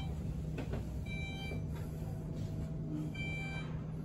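Elevator car riding with a steady low hum, and a short electronic beep repeating about every one and a half to two seconds as floors go by, sounding twice.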